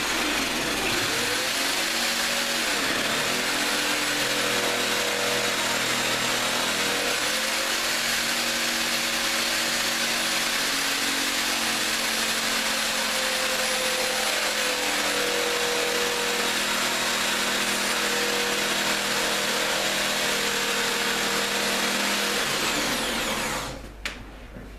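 Electric jigsaw cutting through a hard kitchen worktop, its motor running steadily under load with a slightly wavering pitch; the worktop material is hard and quickly dulls the blade. The saw stops near the end.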